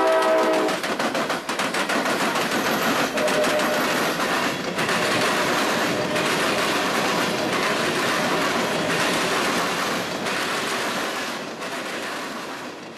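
Norfolk Southern freight train passing close by: a diesel locomotive's horn chord cuts off under a second in, then covered hopper cars roll past with a steady rumble and a rapid clicking of wheels over the track, fading near the end.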